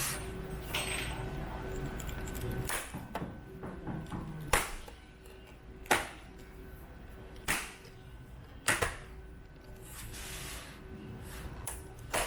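A series of about eight sharp clicks and knocks, spaced one to two seconds apart, over a faint steady hum: hard plastic and tools being handled during work on a computer monitor.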